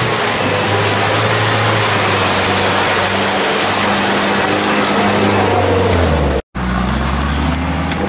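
UAZ-469 off-road 4x4's engine running hard as it pushes through deep mud ruts, its note dropping a little near the end, with a brief gap in the sound about six and a half seconds in.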